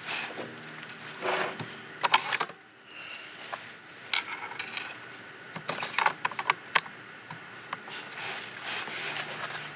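Bolt action of a Remington 700 rifle being worked to chamber a round: several clusters of sharp metallic clicks and clacks, the loudest about two seconds in, more around four and six seconds.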